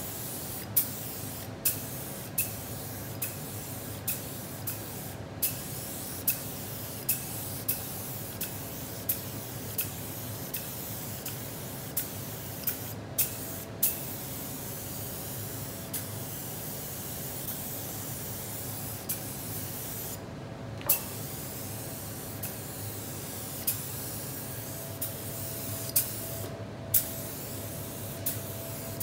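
DeVilbiss SRi Pro Lite gravity-feed spray gun hissing as it sprays the final coat of clear leather lacquer. Sharp clicks come about once a second, and the spray cuts out briefly a few times.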